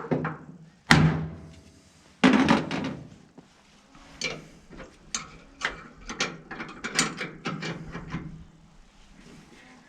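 Three sharp hammer taps on a screw-type Ford hinge pin removal tool, then a run of small irregular clicks as the tool is wound tighter to take up the slack on the stuck, rusted hinge pin.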